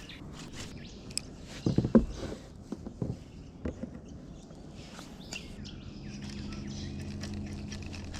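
Birds chirping, with a sharp knock about two seconds in and a few lighter clicks around it. A steady low hum comes in at about five and a half seconds and holds to the end.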